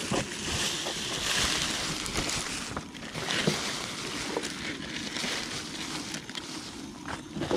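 Plastic bags rustling and crinkling in uneven surges as they are handled and pulled over gear.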